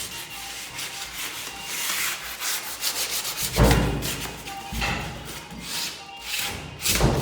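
Sandpaper rubbed back and forth by hand over a surface in quick, repeated scraping strokes, smoothing it for painting. Two heavier thumps come about three and a half and seven seconds in.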